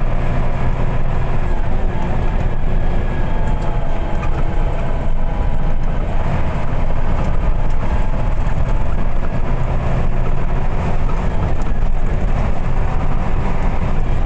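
Steady engine and road noise of an intercity bus heard from inside the passenger cabin, with a low engine hum.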